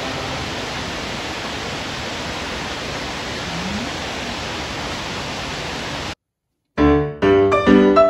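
Steady rush of Nachi Falls, a very tall waterfall plunging down a cliff onto rocks, cut off suddenly about six seconds in. After a short silence, piano music begins.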